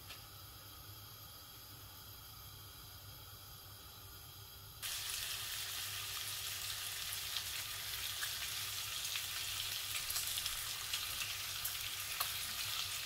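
Thin slices of guanciale sizzling in a frying pan. The sound is a steady, even hiss that cuts in abruptly about five seconds in, after a quiet start.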